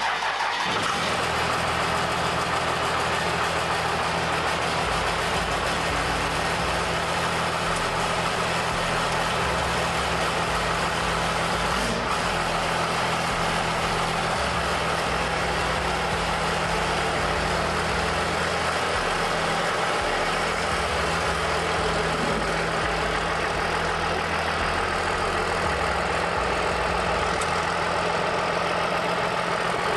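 First-gen Dodge Ram's 12-valve Cummins inline-six diesel idling steadily just after being started.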